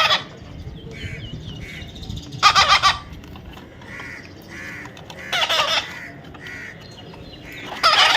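Baby parrot calling: loud harsh squawks about every two and a half seconds, with softer short calls in between.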